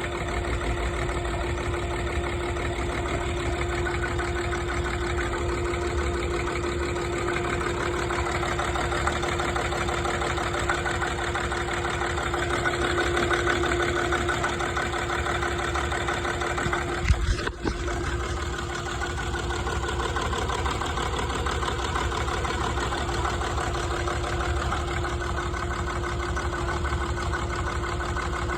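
TDV6 V6 turbodiesel engine idling roughly, with a steady whine running under it. A brief thump sounds about two-thirds of the way through.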